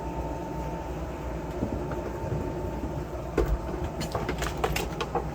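Steady low background hum with a faint constant tone, and a few light clicks and knocks from the soldering station being handled.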